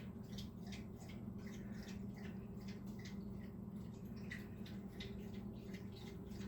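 Low steady hum of an air conditioner unit running, with faint irregular light ticks over it.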